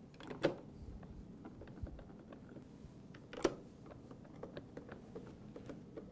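Hand screwdriver driving small screws into a ride-on kart's plastic front fairing: two sharp clicks about three seconds apart, then a run of small faint ticks as the screw is turned.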